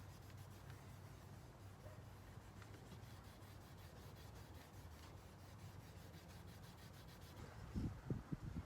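Faint rubbing and handling of hands and a small unit against the dashboard trim, over a steady low hum, with a few soft knocks near the end.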